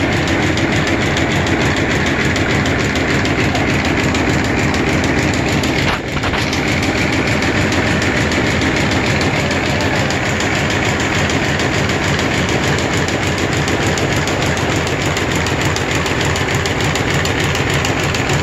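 Narrow-fabric needle loom running at speed while weaving striped tape: a loud, steady, very rapid mechanical clatter, with a brief dip about six seconds in.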